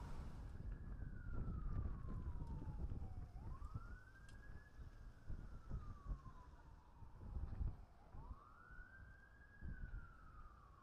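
A siren wailing: each cycle rises quickly and then falls slowly over about three seconds, repeating about two and a half times, over a low, uneven rumble.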